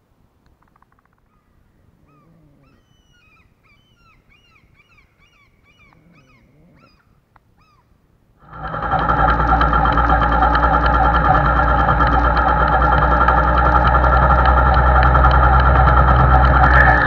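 Faint birds chirping, then about eight and a half seconds in a loud, steady MZ motorcycle engine cuts in suddenly, heard from on the bike as it rides at an even speed.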